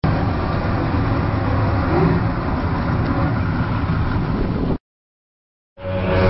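Bank of six Yamaha 250 HP outboard engines running, a steady engine drone with a low hum. It cuts off abruptly about three-quarters of the way through. After about a second of silence it comes back near the end with a steady whine added.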